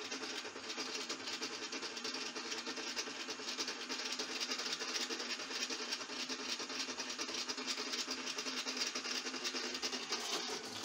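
Small electric rock tumbler running, with a steady whirring rattle. Its drum, loaded with sand and rusty nuts and bolts, is skating on the drive belt instead of turning, so the contents are not tumbling.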